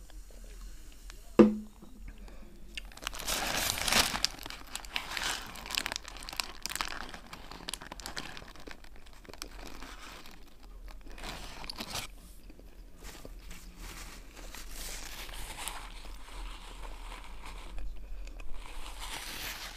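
Close-up eating sounds: the paper wrapper of a shawarma crinkling, with biting and chewing. A single sharp knock comes about a second and a half in.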